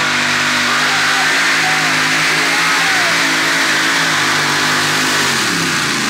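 Pulling tractor's engine running hard at a steady high speed, its pitch falling near the end as it is throttled back.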